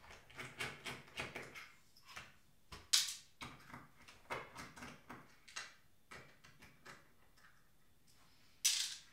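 Light clicks and taps of a plastic remote-control housing and its battery pack being handled on a tabletop. Two louder knocks come about three seconds in and again near the end.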